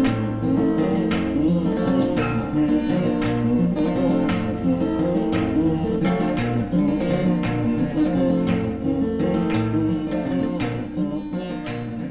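Background music led by strummed acoustic guitar with a steady beat, starting to fade out near the end.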